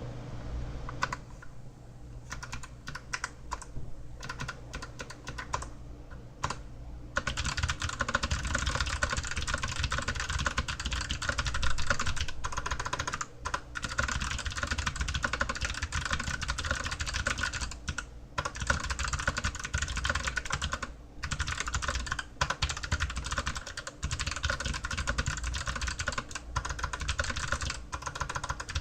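Typing on an Archon AK87 mechanical keyboard with clicky Kailh Box White switches: a few separate keystrokes at first, then fast continuous typing from about seven seconds in, broken by a few short pauses.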